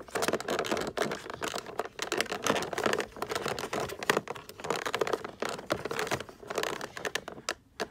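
Clear plastic blister packaging crinkling and clicking in quick, irregular ticks as fingers pick at and untwist a wire twist tie, briefly letting up near the end.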